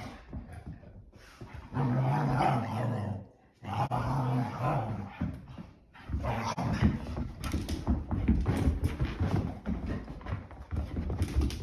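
English Springer Spaniels play-wrestling: two long low growls, then a busy stretch of scuffling with more growling.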